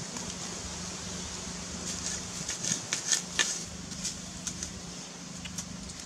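Light rustling and crackling of dry leaf litter and twigs being handled, with a cluster of sharp clicks and crackles in the middle, over a steady hiss and a faint low hum.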